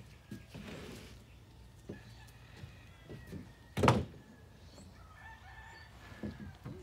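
A rooster crowing, with a few scattered knocks on timber and one loud thump about four seconds in.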